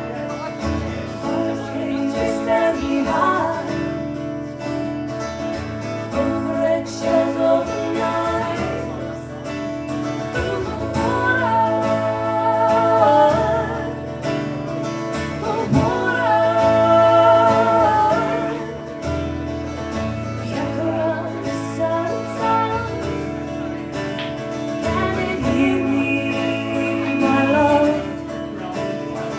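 A band playing a song live: guitar with singing, with long held sung notes.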